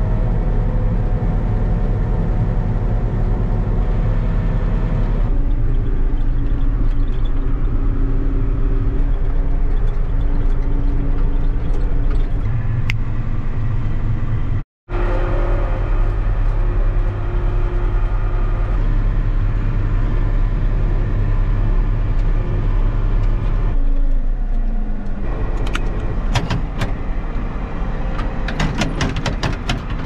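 John Deere tractor's diesel engine running steadily, heard from inside the cab, with a brief break about halfway through. Sharp clicks and rattles come in near the end.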